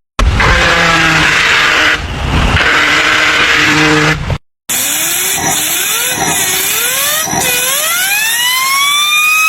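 Car making an abnormal noise: first a noisy hiss with a low steady hum, then, after a short break, a whine that wavers and then rises steadily in pitch as the engine revs up.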